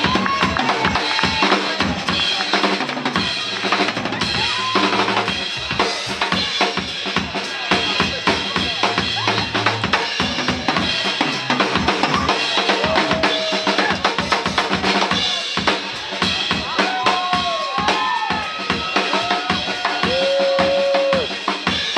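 Live band instrumental: a drum kit plays a busy beat with kick, snare and rimshots under strummed acoustic guitar, while a harmonica wails in bent notes, most of all in the second half.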